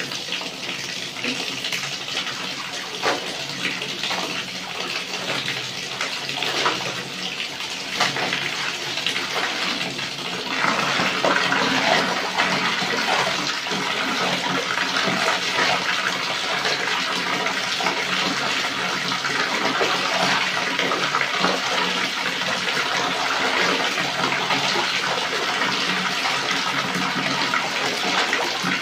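Tap water pouring into a plastic basin of soapy laundry, with clothes being sloshed and wrung by hand in the water. The splashing gets louder about ten seconds in.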